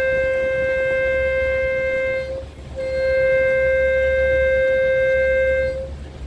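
Boat horn sounding long, steady blasts: one that stops about two seconds in, then after a short gap a second one lasting about three seconds. The launch's engine drones low underneath.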